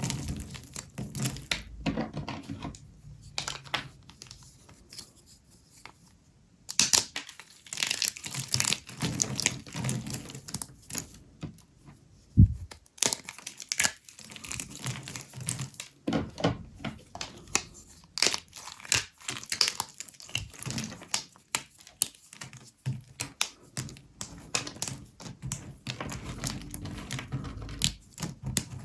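Dry, brittle microwave-puffed soap with starch being broken and crushed by hand: dense crackling and crunching, with a short lull a few seconds in and one sharp thud about twelve seconds in.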